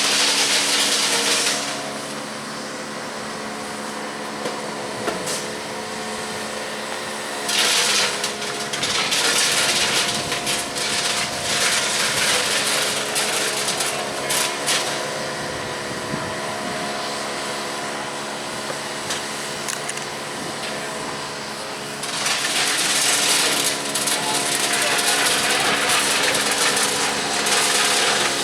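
Diesel engine of a track maintenance machine running steadily, with stretches of loud hissing noise over it.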